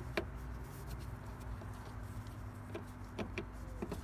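Light clicks and taps of plastic as the tail lamp's flat locking tabs and housing are pressed into place: one sharp click just after the start, then a few lighter ticks near the end, over a steady low hum.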